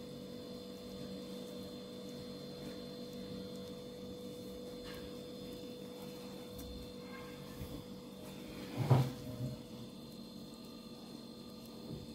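Steady low electrical hum, with a single short knock about nine seconds in.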